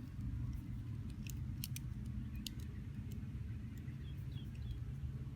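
Scattered small metal clicks and scrapes of a removable pocket clip being worked into the groove of a Leatherman multi-tool, fumbled by hand, over a steady low background rumble.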